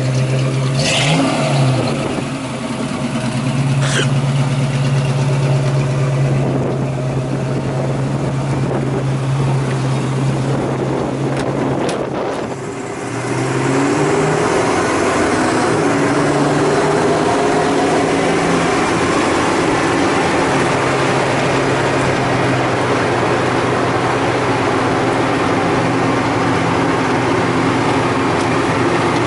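1953 Chevrolet 3100 pickup truck driving, its engine a steady drone. From about a quarter of the way in it is heard from inside the cab, with road and wind noise under the engine.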